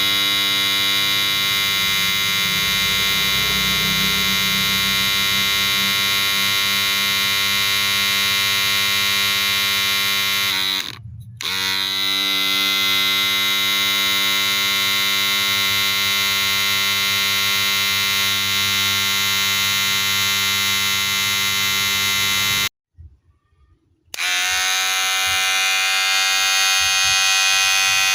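Wahl cordless hair clipper running with a steady, high-pitched electric buzz. It dips out for a moment a little before the middle, then cuts out for about a second and a half near the end before running again.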